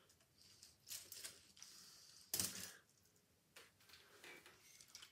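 Light clatter of a 3D-printed plastic Strandbeest leg model with gears being handled and moved across a table, with a sharper knock about two and a half seconds in as it is set down.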